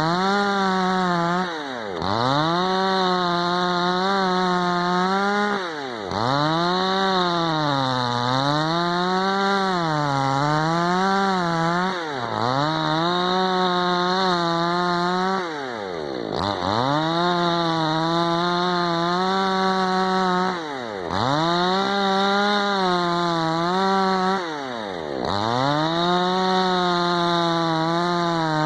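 Tekna CS 58 54 cc two-stroke chainsaw running at high revs. Its pitch wavers, and about every four to five seconds it drops sharply and climbs straight back up.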